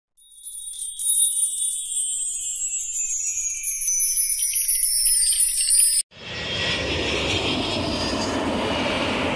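A high, sparkling chime effect whose many tones slide downward in pitch for about six seconds, then stops abruptly. After it comes a steady, even rumbling noise.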